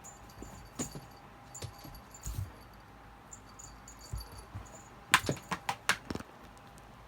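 Cat-teaser toy being moved about, giving a light metallic jingle and small knocks, with a quick run of sharp clicks and knocks about five to six seconds in.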